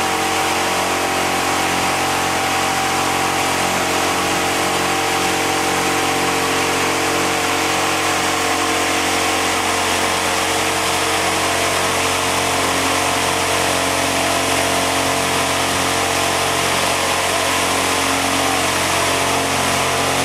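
A 72-inch 'Gorilla' wind machine fan running steadily: a loud motor hum over an even rush of air, with a slow regular throb in the hum.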